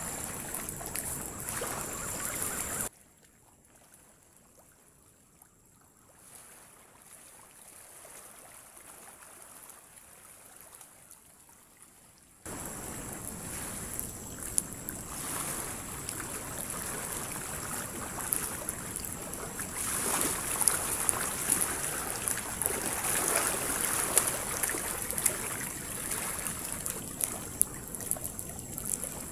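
Wood campfire crackling with scattered sharp pops over a steady wash of surf. A much quieter stretch in the first third ends abruptly, and the noise swells a little past the middle.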